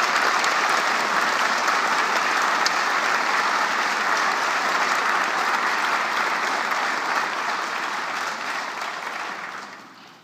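Audience applauding, the applause dying away over the last couple of seconds.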